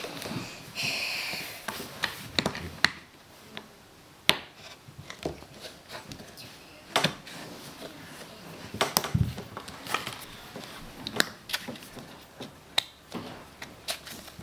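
Stuck snap-on plastic lid of a new Play-Doh tub being pried at by hand: irregular clicks and knocks of plastic, with a short scrape about a second in.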